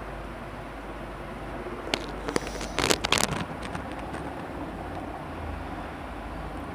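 Pen scratching on paper in a few short strokes about two to three seconds in, over a steady background hum.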